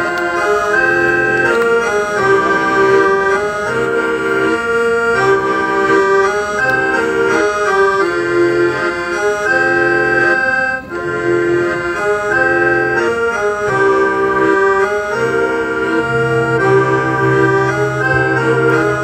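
Accordion playing a quick, lively melody over a low bass line, amplified through a live stage sound system: the instrumental intro of a rock song.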